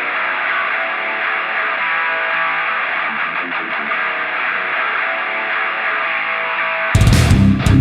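Rock intro music: an electric guitar part that sounds thin and muffled, then about seven seconds in the full band comes in suddenly and louder, with drums.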